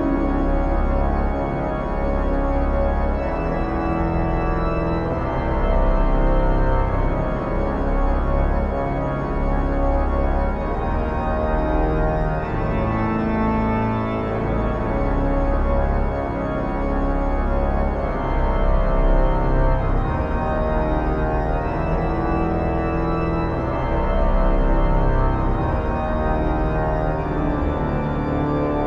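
Organ music: held, sustained chords over a steady low bass.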